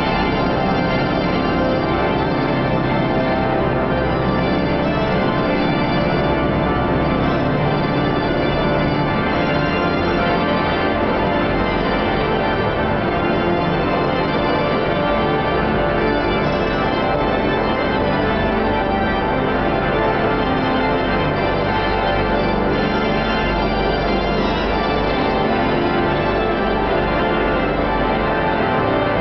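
The great pipe organ of Saint-Sulpice, the Cavaillé-Coll organ, playing loudly: dense sustained chords over deep pedal bass notes.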